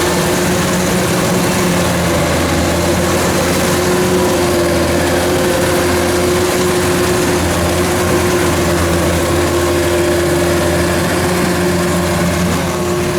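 Diesel engine of a rice combine harvester running steadily at constant speed, with a steady droning note.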